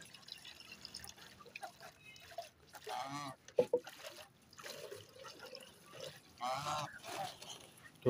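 A few short calls from poultry, about three seconds in and again near five and seven seconds. Under them is a faint trickle of water from an upturned bottle draining into a clay drinking bowl.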